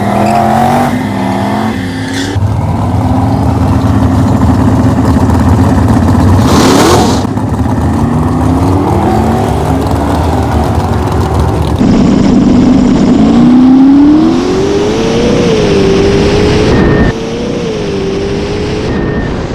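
Twin-turbocharged Camaro's engine accelerating hard down a drag strip, its pitch climbing again and again as it pulls through the gears.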